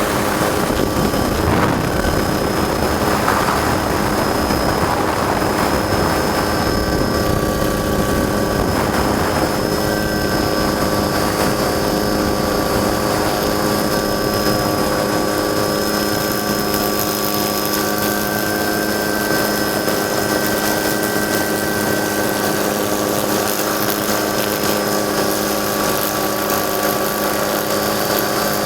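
Helicopter in flight running steadily: a constant rotor and engine rush with several unchanging whining tones over it, heard from on board.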